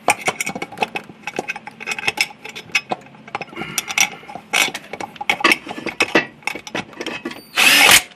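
Metal parts being handled as an intercooler charge pipe and quick-release clamp are test-fitted by hand: a rapid, irregular string of clicks, clinks and knocks, with a louder scraping rustle near the end.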